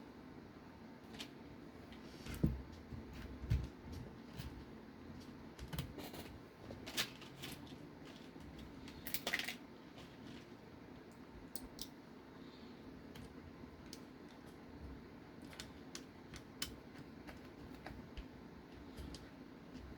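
Scattered light clicks and small knocks of plastic and metal RC car parts being handled while shock absorbers are fitted to the chassis. The heavier knocks come about two and a half and three and a half seconds in, and a cluster near the middle. A steady low hum runs underneath.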